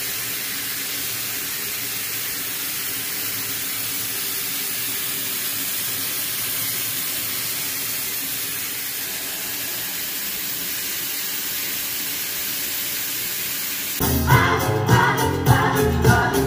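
Tap water running steadily into a bathroom sink as hands are washed under the stream, an even hiss. About fourteen seconds in it cuts off abruptly to louder music with singing.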